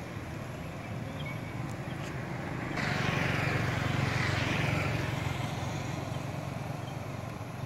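Steady low hum of distant traffic, with a motor vehicle passing close by about three seconds in, its noise swelling and then fading over about two seconds.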